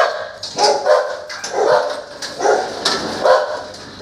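A dog barking repeatedly, about once a second.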